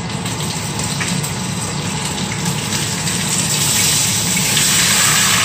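Whole chicken frying in hot oil in a pan: a steady sizzle that gets louder near the end.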